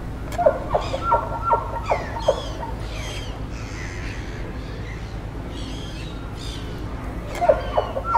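Wild birds calling in a marsh. A quick series of short, sharp calls comes near the start and again near the end, with higher chirps with falling notes in between. A steady low hum runs underneath.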